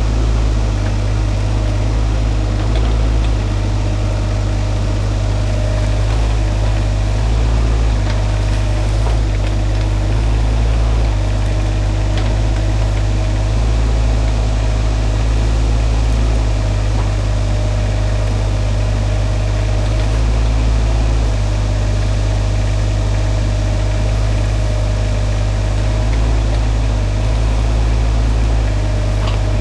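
Shantui mini excavator's engine running steadily, its pitch shifting slightly every few seconds.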